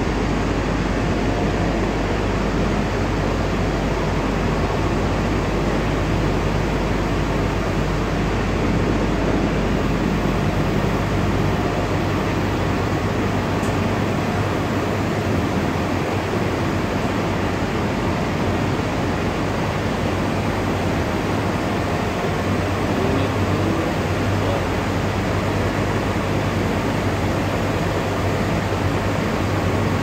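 Steady, loud machinery din of an industrial plant: an even rushing noise over a low hum.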